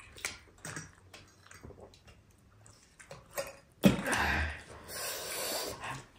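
A person eating: soft chewing and mouth clicks, then two loud noisy slurps, one just before four seconds in and one about five seconds in.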